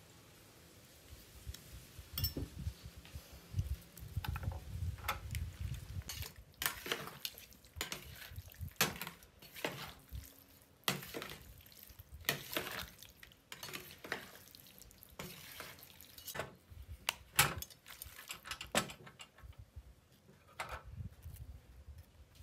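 Metal ladle and fork clinking and scraping against a bowl as spiced salmon pieces are stirred in their marinade. The clinks come irregularly, with soft handling knocks between them.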